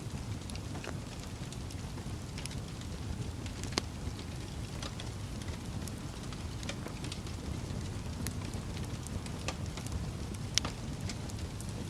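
Wood fire crackling, with a steady low rumble of flame under scattered sharp pops and snaps; two louder pops stand out, about four seconds in and near the end.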